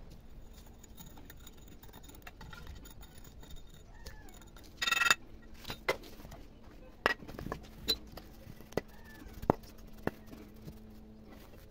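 Freshly sand-cast metal bowl being pried and lifted out of its sand mould with pliers: sand scraping and a series of sharp metallic clicks and taps, with one louder ringing clang about five seconds in.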